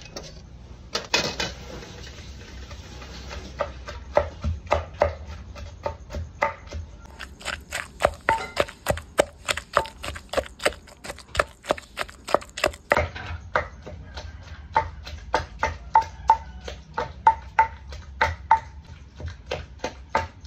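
Wooden pestle pounding dried red chilies, garlic and shallots in a clay mortar, a steady run of dull knocks about two a second, quicker for a stretch in the middle: curry paste for nam ya being made. A brief scraping noise comes about a second in.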